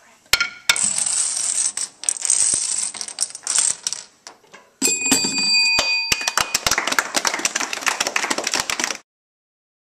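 Plastic dominoes clattering as they topple in a chain and balls rolling along a bench, with a knock or two. About five seconds in a bell-like ringing chime sounds, the signal that the trash has landed in the bin, followed by clapping that cuts off suddenly near the end.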